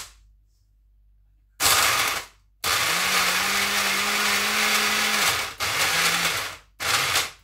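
Countertop blender run in pulses, chopping ice cubes and banana: a short burst about a second and a half in, a run of about three seconds with the motor's hum rising as it spins up, then two shorter bursts near the end.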